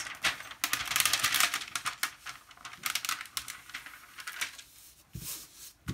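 Clear plastic protective film crackling and crinkling as it is peeled off the sticky surface of a diamond-painting canvas, loudest in the first couple of seconds. It turns to quieter rustling as hands smooth the canvas flat.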